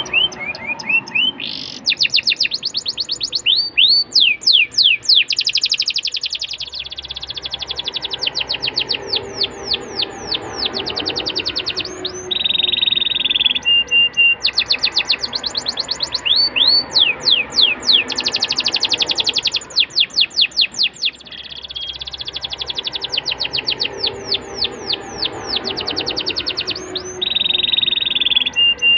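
Domestic canary singing a long, loud song: rapid trills of quick down-sweeping notes, buzzy rolls, and short steady whistled notes, phrase after phrase without a break.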